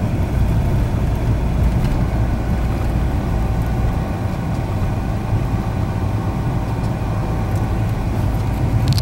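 Steady road and engine noise heard inside a moving car's cabin: a continuous low rumble of the tyres and engine at cruising speed, with a faint steady tone running through it.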